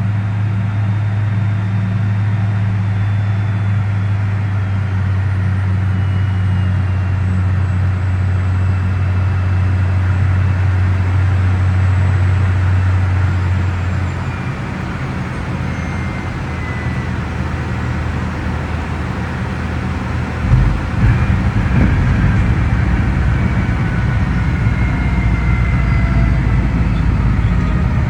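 Inside the cabin of a Cirrus Vision Jet SF50, the single Williams FJ33 turbofan and airflow run steadily with a strong low hum, which drops about halfway through. About 20 seconds in, a sudden thump marks the wheels touching down. A rough rolling rumble follows, with the engine whine falling.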